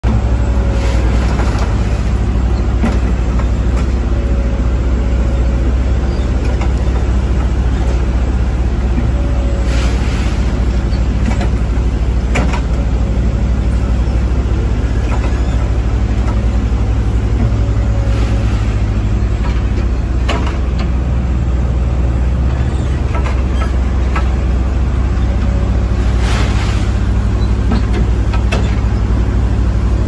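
COE pistachio shaker and receiver harvesting: a heavy machine engine runs steadily with a loud low rumble. Scattered sharp clicks and rattles sound over it, and a short whine recurs every few seconds.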